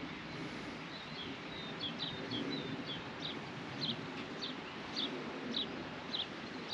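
A songbird calling over and over, short high downward chirps about two a second, over a steady outdoor background hiss.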